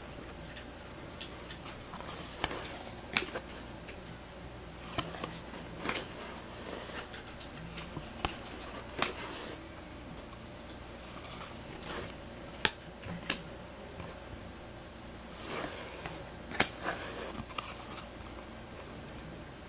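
A hand-held stack of cardboard hockey trading cards being flipped through one card at a time, each card slipping off the stack with a short sharp click, at irregular intervals of about a second, over a steady low hum.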